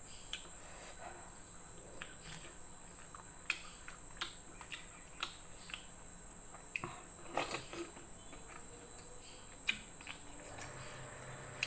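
Quiet eating sounds: scattered short clicks and smacks of chewing, with a small cluster about two-thirds of the way through. Under them runs a steady high-pitched insect trill, like a cricket.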